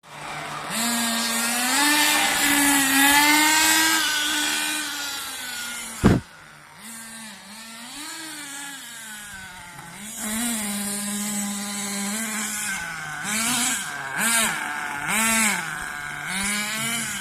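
Small engine revving up and down, its pitch rising and falling over several seconds, then in a quick series of short blips near the end. A single sharp click about six seconds in.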